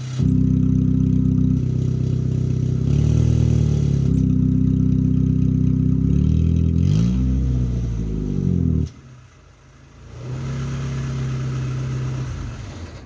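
Chevrolet Corsa engine idling and revving through an exhaust fitted with an electric exhaust cutout, giving a sporty exhaust note. It is revved up and back down twice, about three and seven seconds in. The sound drops away suddenly about nine seconds in and returns to a steady, quieter note a second later, as the cutout is switched.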